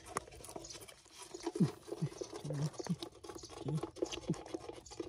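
Bare hands digging and scraping into cracked, drying mud, with many small crunches, scratches and wet pats as clods break apart. A few short, low voice sounds fall in pitch in the middle stretch.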